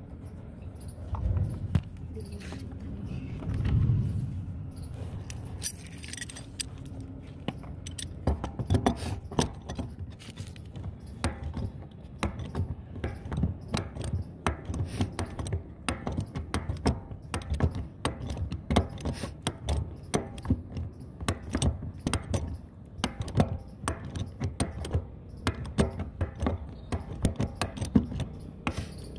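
Hand wrench clinking and rattling on a threaded UPVC fitting as it is turned and repositioned in short strokes to tighten the fitting into the plastic water tank wall. A couple of dull thumps in the first few seconds, then rapid, irregular metallic clicks from about eight seconds on.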